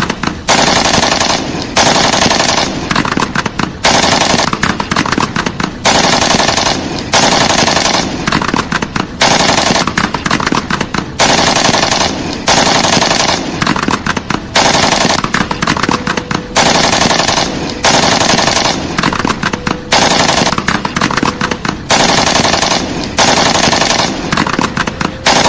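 Automatic gunfire sound effect: short bursts of rapid shots, about one burst a second, repeating one after another.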